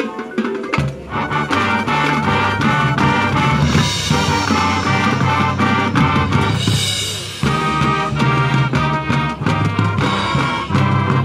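High school marching band playing: brass with sousaphones over front-ensemble mallet percussion. The full band comes in strongly about a second in, and the low brass drops out briefly around seven seconds in before the band comes back.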